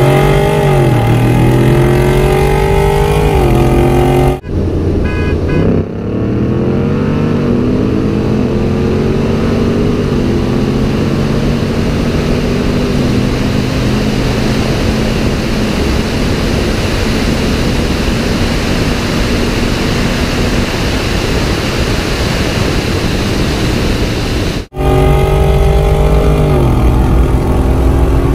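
Chevrolet Camaro SS's 6.2-litre V8 at full throttle in a race, its pitch climbing and dropping back at each upshift, heard from inside the cabin. About four seconds in, the sound switches to a steady rush of wind on the microphone, over the two V8 muscle cars running side by side with the engine note slowly rising. Near the end it switches back to the engine heard from inside the cabin.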